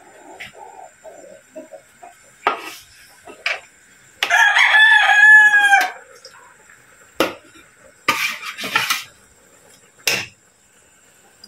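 A rooster crows once, about four seconds in, for nearly two seconds, the loudest sound here. Before and after it a metal ladle clinks a few times against the wok and its aluminium lid, with a short rattling clatter around eight to nine seconds in.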